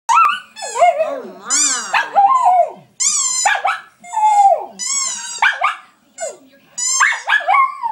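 Dog howling in a run of warbling, yodel-like calls that slide up and down in pitch, broken by short pauses.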